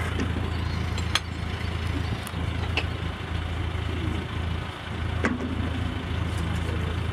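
Engine idling steadily in a low drone, with three short sharp clicks about one, three and five seconds in.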